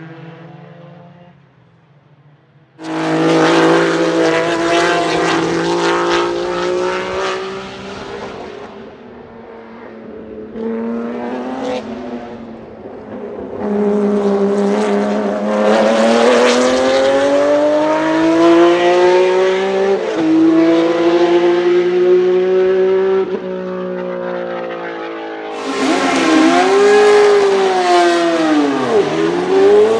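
Racing car engines running at high revs across several cuts. First a pack of single-seater racing cars runs past at speed. Then a BMW M1 Procar's straight-six passes and accelerates. Last, a historic Formula 1 car revs hard, its revs dropping and rising again sharply near the end as it pulls away.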